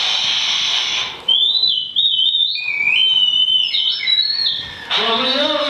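Experimental electronic sound art: about a second of high hiss, then high, whistle-like tones that jump between pitches, and near the end a lower tone that bends up and down.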